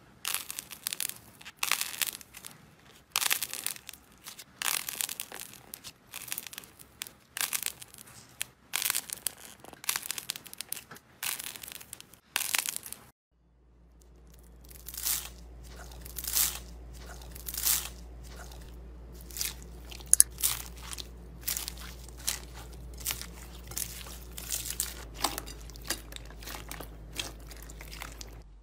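Slime squeezed and pressed by hand, giving short crackly crunches about once a second. After a brief gap about halfway through, a hand presses into a bowl of small foam beads, and the crunching goes on over a low steady hum.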